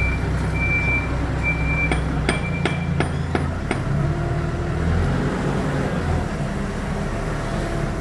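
Hidromek 102 S backhoe loader's diesel engine running steadily, with its reversing alarm beeping four times in the first three seconds. A quick run of sharp knocks follows. The engine note changes about five seconds in.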